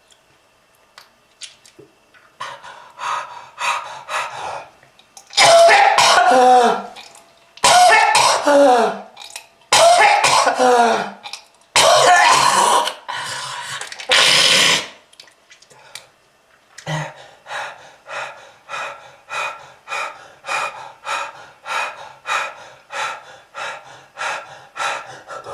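A smoker coughing hard. After a quiet start come a few light coughs, then five loud coughing fits with a falling, strained voice in them, then a long run of short, quick coughs about two a second.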